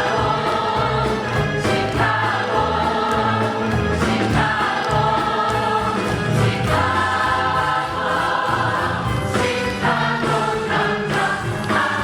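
Stage-musical cast singing together over a live band, several voices holding sustained notes with a steady beat underneath.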